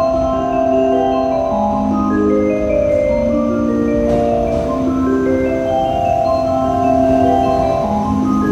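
Music: a slow melody of held notes over changing chords, continuing steadily.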